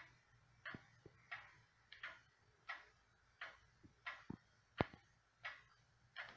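Sessions Salem model banjo wall clock's time-only movement ticking steadily, about three ticks every two seconds. A sharper knock stands out a little after the middle.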